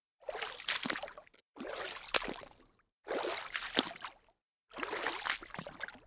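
Water splashing in four separate splashes about a second and a half apart, each lasting about a second with a sharp start and a fading tail, with silence between them.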